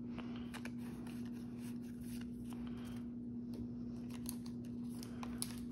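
Yu-Gi-Oh trading cards being handled and set down on a wooden table: faint scattered clicks and light rustles over a steady low hum.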